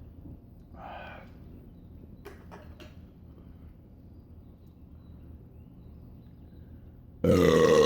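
A man's loud burp begins near the end, after he has chugged a can of Budweiser; a couple of faint clicks come a few seconds earlier.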